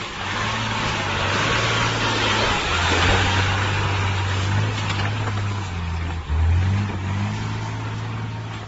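A motor vehicle's engine running, with a loud rushing noise over it that is strongest in the first half. About six seconds in, the engine's pitch drops and then rises again.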